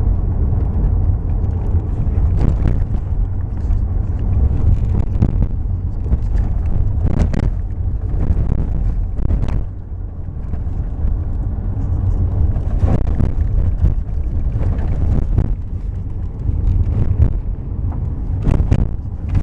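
Toyota RAV4 driving with a steady road rumble. Sharp knocks sound every few seconds at uneven intervals, which the owner puts down to a knocking steering rack.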